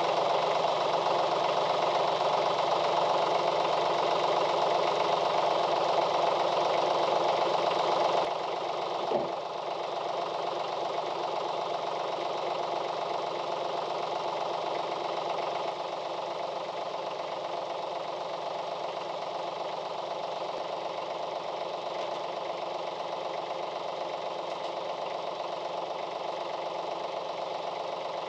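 Branson 2515 tractor's small diesel engine running steadily, holding the boom pole's load. About eight seconds in it drops to a quieter, lower idle, with a short clunk about a second later.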